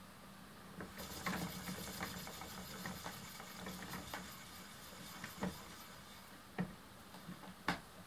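Spinning wheel running as fiber is coil-spun onto a core yarn: a faint, fast mechanical whirr with a light ticking rhythm that starts about a second in and fades out after a few seconds. Two sharp clicks near the end.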